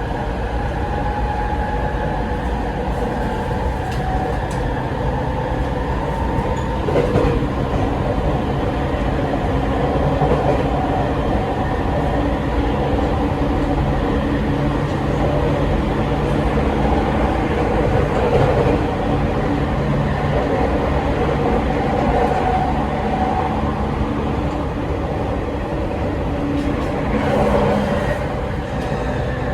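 Rinkai Line 70-000 series electric train running at speed between stations: steady traction motor and Mitsubishi IGBT-VVVF inverter tones over continuous wheel and rail rumble. This set is singled out for an unusual running noise.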